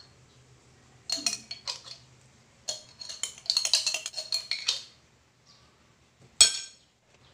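Metal spoon scraping and clinking against a mayonnaise jar and a plate as mayonnaise is scooped out, in two bouts of quick clicks. About six seconds in comes one loud, briefly ringing clink.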